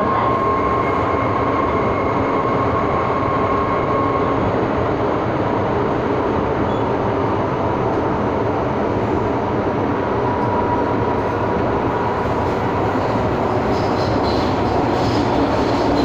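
MTR M-Train subway car heard from inside while running through a tunnel: a loud, steady rumble of wheels and rushing air. A thin steady whine sits over it and fades out about four seconds in.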